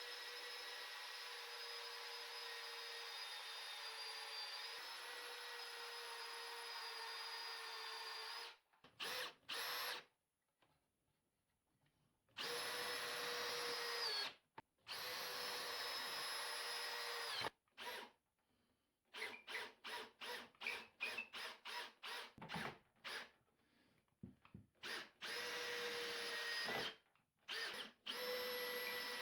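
Power drill boring pocket holes through a pocket-hole jig: the motor runs in long steady stretches with brief stops between holes. Past the middle it comes as a string of quick short bursts.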